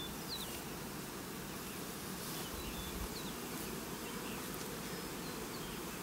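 Steady hum of many honeybees flying around an open hive, with short high chirps scattered through it.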